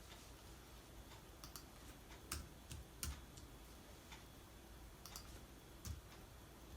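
Faint computer keyboard keystrokes: a dozen or so sharp, irregularly spaced key clicks, with pauses of a second or more between them, over low room hiss.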